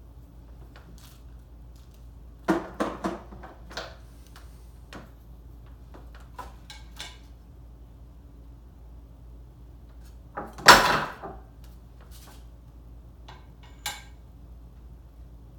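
Scattered metal clinks and knocks of tools and engine parts being handled during an engine rebuild, with a quick cluster of knocks about two and a half seconds in and a louder, briefly ringing knock about ten and a half seconds in.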